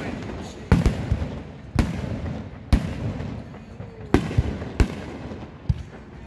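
Aerial firework shells bursting in a series of sharp bangs, about eight in six seconds at irregular spacing, each trailing off in a low rumble.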